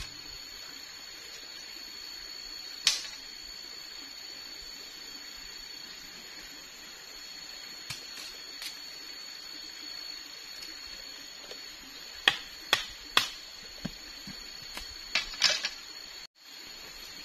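Machete blade striking and cutting a bamboo slat as it is split and shaved. A few separate sharp knocks come early, then a quick run of them in the second half, over a steady high-pitched background whine.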